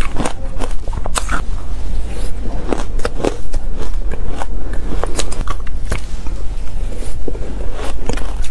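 Close-miked chewing and crunching of powdery shaved ice: a dense, irregular run of sharp crackles and crunches.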